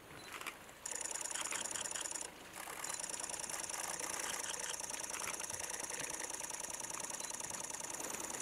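High-pitched insect call in a fast, even pulsing rhythm. A short burst comes about a second in, then after a brief break it starts again and runs on steadily.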